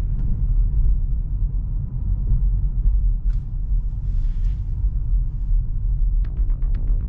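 Steady low road and tyre rumble inside a Tesla Model 3's cabin while driving. About six seconds in, music with a rhythmic ticking beat comes in over it.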